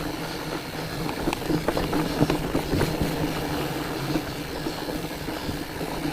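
Fatback Skookum fat bike rolling over rocky, rooty singletrack. Its tyres give a steady rumble, with many scattered clicks and rattles from the bike as it jolts over roots and rocks.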